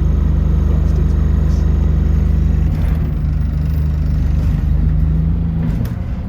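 Bus engine running with a steady low hum, its note shifting about three seconds in.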